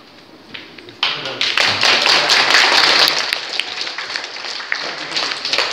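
Audience clapping, starting suddenly about a second in, at its loudest a second or two later, then thinning out.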